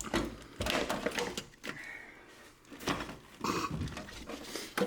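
A car battery being handled and set down into its bay: a series of knocks and scrapes.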